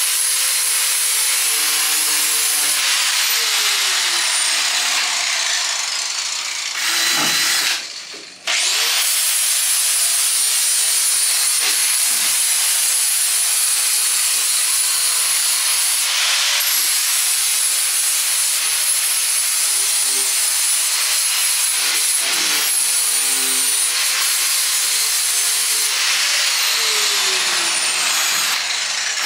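Angle grinder scouring surface rust off a steel race-car chassis: a continuous grinding hiss of the wheel on metal over a steady high whine from the tool. It breaks off briefly about a quarter of the way in, then picks up again.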